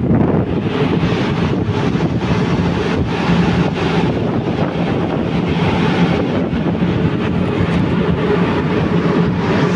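Wind buffeting the microphone over the steady low hum of a boat's engine.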